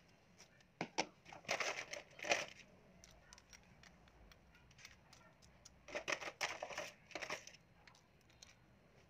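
A metal spoon scooping and pressing crushed ice and watermelon chunks in a hollowed watermelon shell: ice clinking and crunching against the spoon in two bursts of clicks and scrapes, one about a second in and another around six seconds in.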